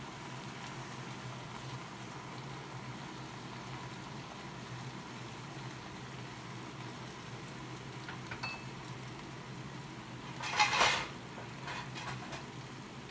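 Metal cookware and utensils clattering loudly once with a ringing clang about ten and a half seconds in, after a few light clinks, over a steady low kitchen background noise.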